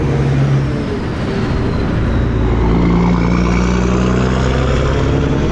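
Semi truck's diesel engine running at highway speed over tyre and road noise; the engine note steps up in pitch about two and a half seconds in.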